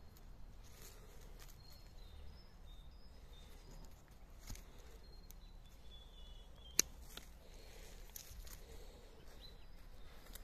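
A single sharp snip of hand pruning shears cutting through a young olive branch, about two-thirds of the way in, over faint outdoor ambience with short, thin bird chirps.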